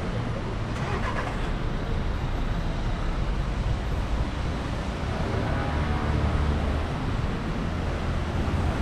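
City street traffic: cars moving along the road, a steady rumble of engines and tyres.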